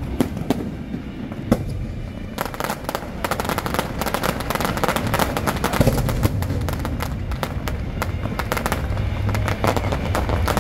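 Fireworks going off overhead: a few separate bangs, then from about two seconds in a dense, rapid crackle of many small pops that keeps going.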